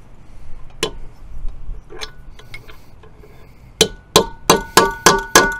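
Steel hammer blows on a cold chisel set in the notches of an outboard lower unit's stuck retaining nut, knocking it round to loosen it. Two single taps, then a quick run of ringing metal strikes about three a second near the end.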